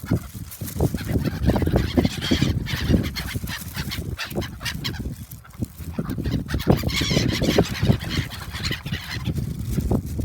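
A flock of gulls calling loudly, many overlapping cries at once, as they gather to be fed.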